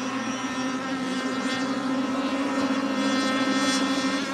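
Radio-controlled racing boats running at speed across the water. The motors make a steady, even-pitched note with many overtones, growing slightly louder toward the end.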